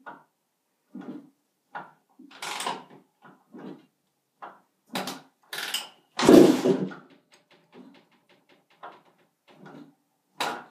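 Repeated kicks on the kickstarter of a 1999 Honda CR125's two-stroke single on a cold start, the engine turning over without firing. The hardest kick, with a deep thump, falls about six seconds in.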